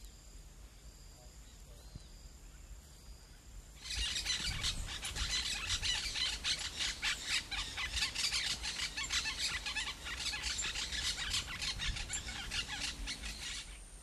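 Many birds calling together in a dense, rapid, high-pitched chatter that starts about four seconds in and stops abruptly near the end. Before it there are only faint, steady high tones.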